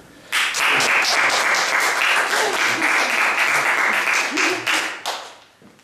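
Applause greeting a correct quiz answer, starting suddenly about a third of a second in, holding steady, then fading out near the end.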